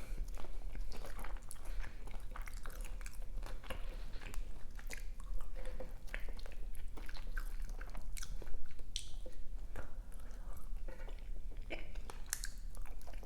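Close-miked eating: a person chewing and biting fast food, with irregular wet smacks, clicks and occasional crunches.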